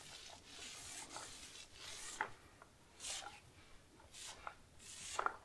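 Small paint roller rolling over a ceiling, feathering out freshly brushed oil-based primer: a series of faint, soft swishing strokes, roughly one a second.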